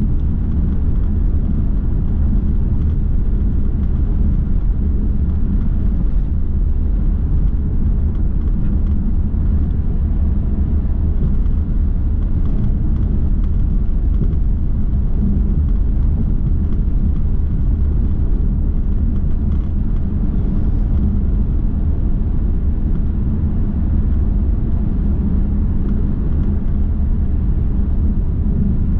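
A car driving steadily, heard from inside the cabin: an even, low rumble of road noise.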